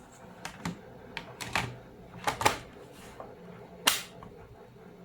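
Plastic clicks and knocks from the HP ProBook 4530s laptop's bottom access cover being fitted back into place, in an irregular string of sharp snaps, the loudest about four seconds in.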